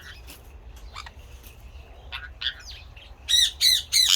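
A bird gives a few faint chirps, then from about three seconds in breaks into a rapid run of loud, harsh squawks.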